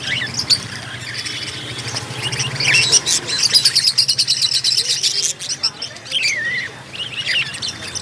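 Caged budgerigars chirping and warbling together, with a fast run of quick repeated chirps from about three to five seconds in.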